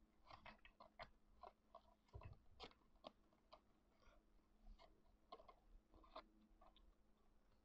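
Faint, irregular small clicks and taps of oracle cards being handled and set into a card stand, with a faint steady hum beneath.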